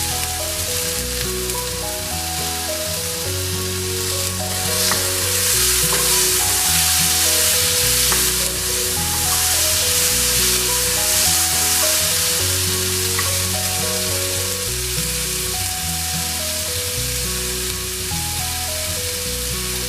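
Chopped onion, ginger-garlic paste and tomato frying in hot oil in a pan, with a steady sizzle throughout. Soft background music with held notes plays underneath.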